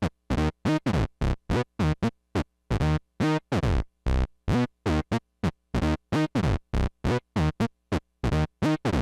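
Monophonic synth lead played by an Arturia BeatStep step sequence, synced to Maschine's tempo by MIDI clock: short staccato notes in a steady repeating pattern of about four a second, some with a falling sweep.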